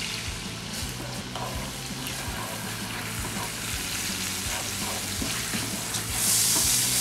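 Butter, brown sugar, minced garlic and red pepper flakes sizzling in a frying pan while a spatula stirs and scrapes through them, with small scattered clicks. The sizzle grows louder about six seconds in.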